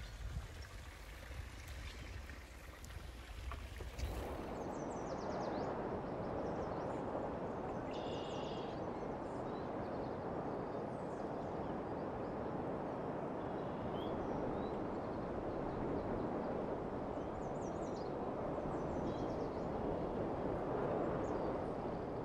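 Open-air background with a low rumble for the first few seconds, then a steady rushing of a flowing stream, with small birds chirping briefly now and then.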